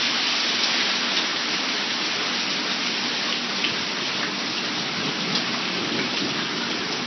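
Heavy downpour mixed with hail, a steady hiss of rain with a few faint ticks of hailstones striking.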